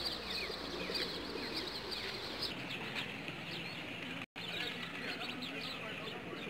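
A dense chorus of short, rapid bird chirps over the low cooing and wing flaps of a large flock of rock pigeons. The sound cuts out for an instant about four seconds in.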